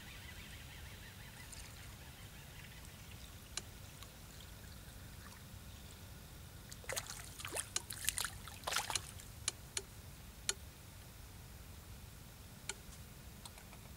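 A hooked roach splashing at the water's surface as it is reeled in: a quick cluster of sharp splashes lasting about two seconds near the middle, then a few single splashes.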